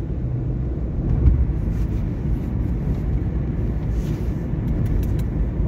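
Steady low rumble of a car heard from inside the cabin, engine and road noise with no voices.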